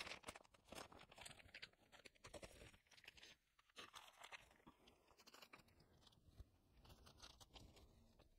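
Near silence with faint, irregular crinkling and small clicks of photocards and plastic storage sleeves being handled.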